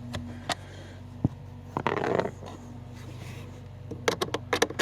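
Screwdriver clicking and scraping against the blower motor's mounting bolts and the plastic housing: a few sharp clicks, a brief scrape about two seconds in and a quick run of clicks near the end, over a steady low hum.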